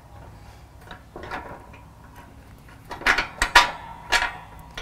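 Light metallic clinks and taps of a steel bolt against steel mounting brackets as the bolt is started by hand; a few soft clinks about a second in, then a cluster of sharper ones in the last two seconds.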